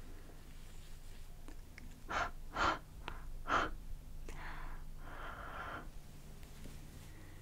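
Close-miked breaths huffed onto the camera lens to fog it: three short, sharp exhales about two to three and a half seconds in, then two longer, softer breaths.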